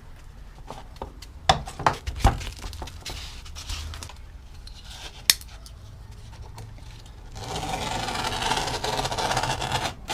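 Steel pliers and metal tools clinking and knocking as they are handled, then about two and a half seconds of steady abrasive scraping on the metal near the end.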